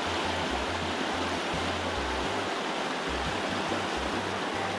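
Fast river rapids rushing steadily over rocks, a continuous, even whitewater noise.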